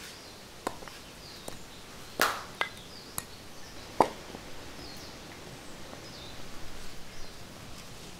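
Outdoor ambience: faint scattered bird chirps over a steady hiss, broken by a handful of sharp snaps and knocks. The loudest knock comes a little over two seconds in and another at about four seconds.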